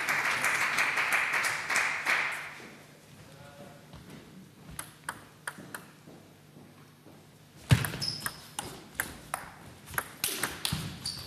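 Applause fades away over the first couple of seconds. After a quiet stretch a table tennis rally starts, the ball clicking sharply off paddles and table about twice a second.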